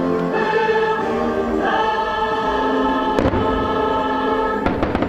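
Fireworks show soundtrack with a choir singing sustained chords over orchestra, and firework bursts cracking over it: one a little past three seconds in and a quick cluster near the end.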